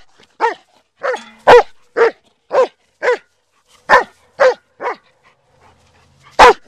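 German Shepherd Dog barking repeatedly, short sharp barks about two a second, nine or so in a row, then a pause of over a second and one more loud bark near the end.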